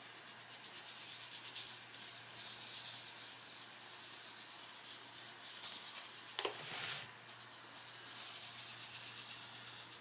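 Silica gel crystals being poured and sprinkled over flowers, a soft gritty hiss that swells and eases as the granules fall. There is one brief sharper tick about six and a half seconds in.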